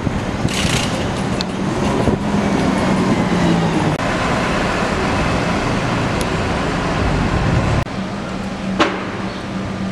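City bus engine and street traffic as a DART transit bus drives past, with a brief hiss about half a second in. The sound cuts off suddenly near the eight-second mark and gives way to a steadier hum with one sharp click.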